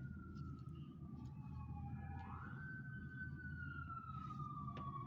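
A siren wailing: its pitch slides down, rises quickly about two seconds in, then falls slowly again, over a steady low hum.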